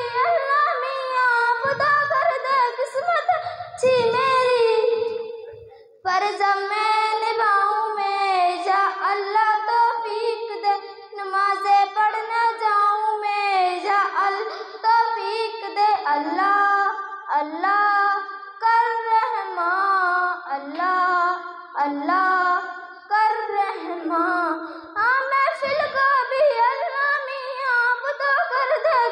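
A girl singing an Urdu devotional prayer song solo into a microphone, with a short pause about five seconds in.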